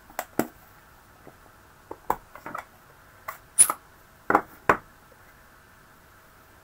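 Plastic stamp pad case and acrylic stamp block handled on a craft table: a scattered run of about ten short clicks and light knocks, the sharpest about three and a half seconds in.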